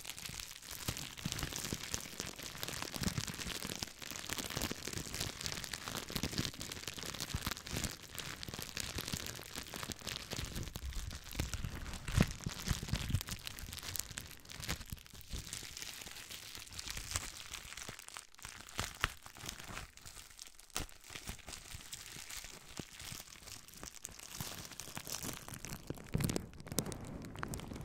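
Green plastic bubble wrap crinkled and rubbed between the fingers right at the microphone: a dense, continuous crinkling full of sharp little crackles, thinning out for a while past the middle.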